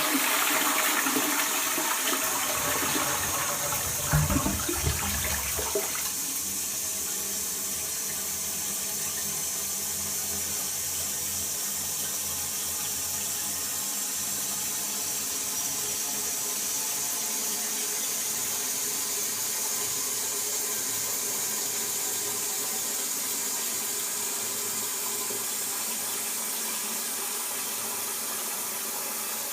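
Toilet flushing: water rushing through the bowl, with a louder low surge about four seconds in that stops at about six seconds. The cistern then refills with a steady hiss.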